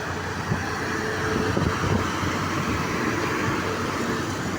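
A bus engine running steadily under continuous road and traffic noise, with no horn sounding.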